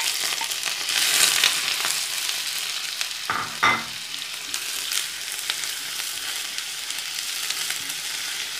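Sliced onions sizzling in hot coconut oil in a nonstick frying pan while being stirred with a wooden spatula. Two short knocks of the spatula against the pan about three and a half seconds in.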